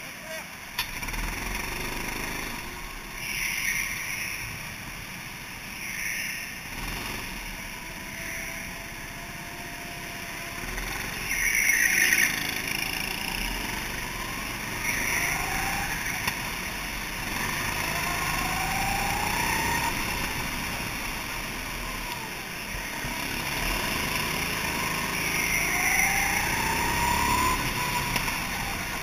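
Go-karts running on an indoor track, the driver's own kart rising in pitch several times as it speeds up out of the corners. A louder rushing burst comes about twelve seconds in.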